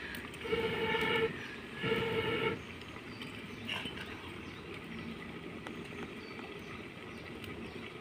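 A horn sounding in short repeated blasts of one steady pitch, two blasts in the first few seconds, followed by faint background noise.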